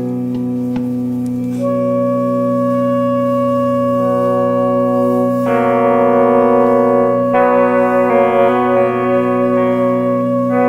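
Background music of long held chords, changing to a new chord every two to four seconds, with a few wavering notes near the end.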